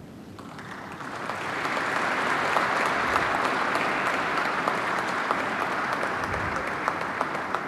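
Audience applause that starts about half a second in, swells over the next second or two, holds steady, and thins out near the end.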